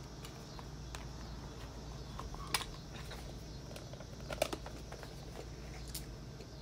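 Small items being handled out of sight: a few light clicks, about two and a half, four and a half and six seconds in, over a steady low hum.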